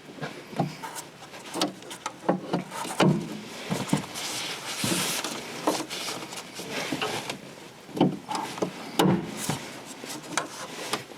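Irregular knocks, clicks and rustling of hands working at a car's trunk, fitting a replacement gas strut onto its mounts.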